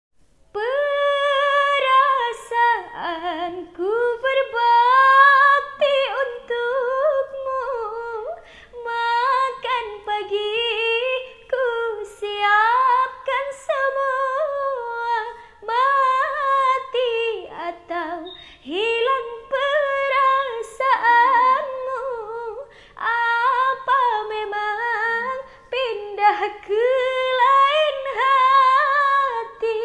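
A young woman singing an Indonesian pop ballad unaccompanied, with long held notes that waver in pitch and short breaks for breath.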